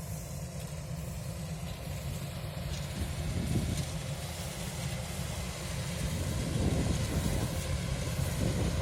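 Kubota DC-105X combine harvester's diesel engine running steadily as the machine works through the rice, growing a little louder near the end.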